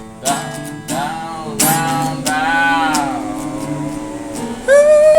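Acoustic guitar strummed in a slow rhythm. A loud, wordless sung note comes in near the end.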